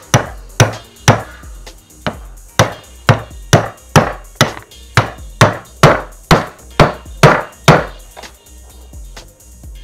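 Hammer striking repeatedly in an even rhythm, about two blows a second, each with a short ringing tail. The blows stop about 8 seconds in.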